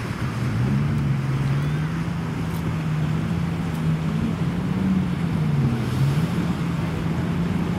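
An engine running with its pitch slowly rising and falling, over a steady background rush.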